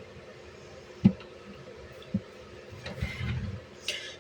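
A cardboard model kit box being handled: two light knocks about one second and two seconds in, then rustling and a brief scrape near the end, over a faint steady hum.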